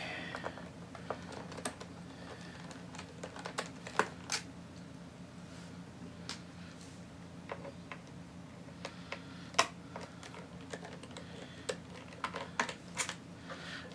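Irregular small clicks and taps of a screwdriver working screws out of a laptop's plastic bottom case, with a few sharper ticks between them.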